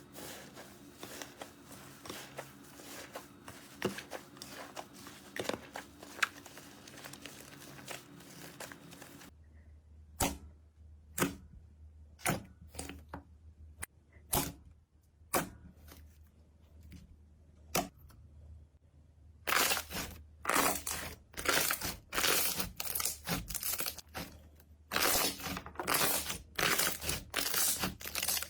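Slime being squeezed and pressed by hand, giving close-up clicks, pops and crackles. The pops come one at a time in the middle, then turn into a dense, louder crackling near the end.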